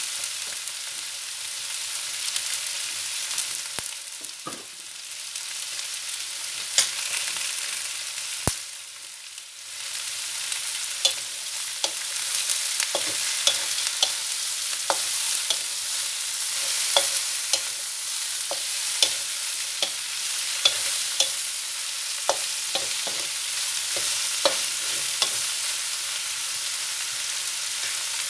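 Whole shell-on shrimp sizzling in oil in a metal wok while being stirred with a wooden spoon. A steady high sizzle runs throughout, with frequent sharp clicks and knocks of spoon and shells against the wok. The knocks come thicker in the second half.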